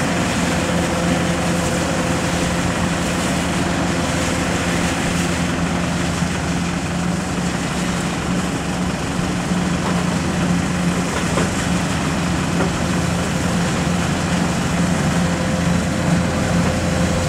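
Heavy diesel engine of a rice combine harvester running steadily at constant speed, an even drone with no change in pitch.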